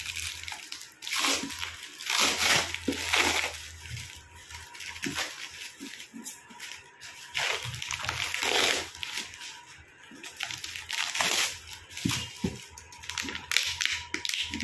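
Clear plastic wrap being pulled and torn off a taped cardboard parcel: irregular bursts of crinkling and rustling.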